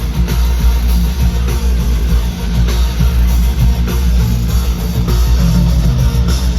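Live concert music over a big arena sound system: a loud band with heavy bass, drums and guitar keeping a steady beat.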